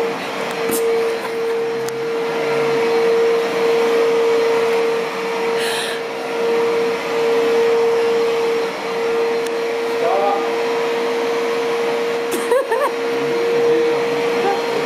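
Vacuum cleaner running steadily: a constant motor whine over a rushing hiss. A brief knock comes near the end.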